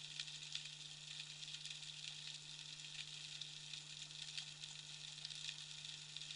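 Underwater reef ambience: a steady crackling fizz of countless tiny clicks, typical of snapping shrimp, with a constant low hum underneath.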